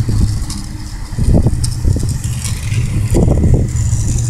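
Skateboard wheels rolling over a concrete bowl: a steady low rumble that swells louder about a second and a half in and again after three seconds.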